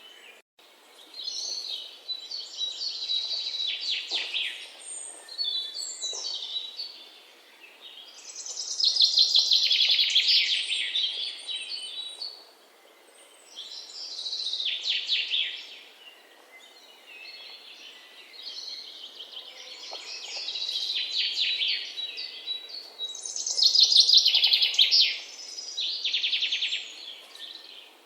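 Birds chirping and trilling in repeated high bursts a second or two long, with short pauses between.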